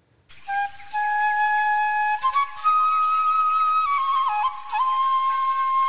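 Background music: a flute playing a slow melody of long held notes, starting about half a second in.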